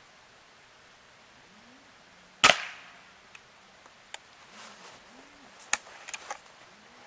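A single shot from a break-barrel air rifle about two and a half seconds in: a sharp crack with a short ringing tail. A few fainter clicks follow over the next few seconds.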